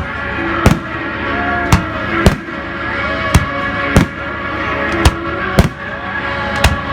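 Fireworks bursting, about nine sharp bangs at uneven intervals, some less than a second apart, over music playing.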